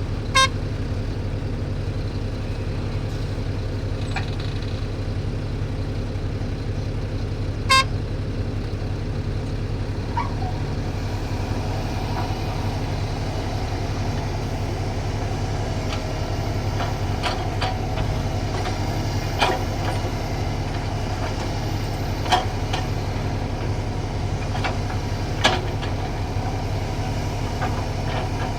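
Heavy diesel engine running steadily, with two short horn toots, one near the start and one about eight seconds in. From about halfway a higher whine joins, with several sharp clanks, as the machinery works to free the stuck tipper truck.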